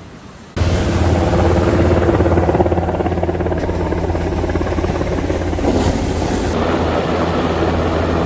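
Helicopter flying low over the shore, a loud steady rotor beat and turbine drone that starts abruptly about half a second in.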